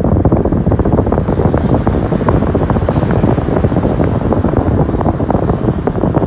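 Loud, steady rumbling rush of moving air buffeting the microphone, fluttering rapidly and unchanged throughout.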